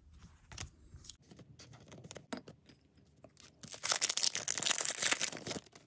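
Shiny booster-pack wrapper crinkling and tearing as it is ripped open, loudest for about two seconds near the end. Before that, a few light clicks of trading cards being handled.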